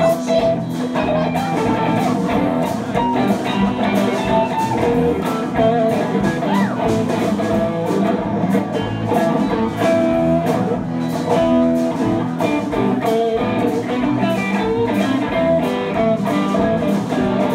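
Live rock band playing an instrumental passage with no singing. Electric guitars play over a drum kit, and a lead line bends its notes up and down.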